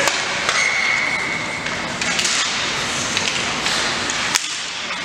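Ice hockey rink during play: skates scraping on the ice and several sharp clacks of sticks and puck, over spectators talking.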